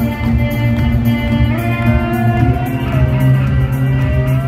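Live rock band playing loudly in an arena, heard from the crowd: electric guitar over sustained chords and a steady bass, with a lead line that slides between notes.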